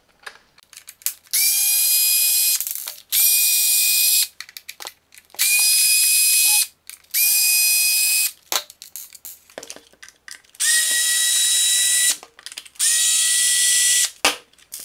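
Small cordless electric screwdriver whirring in six separate runs of about a second each, as it backs out case screws. Each run winds up quickly, then holds a steady whine; the last two are a little lower in pitch. Small clicks fall between the runs as screws come free and are set down.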